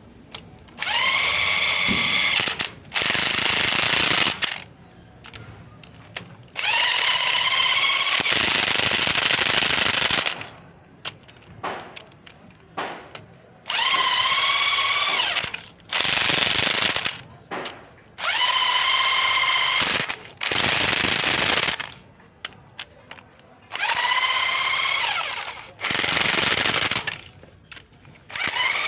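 Impact wrench run in repeated bursts of one to three seconds, each opening with a rising whine that settles into a steady rattling hammer, with short pauses between bursts.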